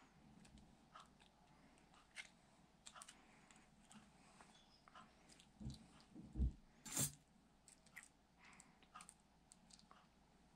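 Faint scattered clicks and taps of small metal construction-toy parts (screws, nuts, perforated metal strips) being handled, with a couple of dull thumps and then one sharper click about seven seconds in.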